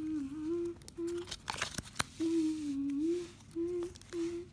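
A boy humming a wordless tune in several short held notes, with a few clicks and rustles of trading cards and foil booster wrappers being handled about two seconds in.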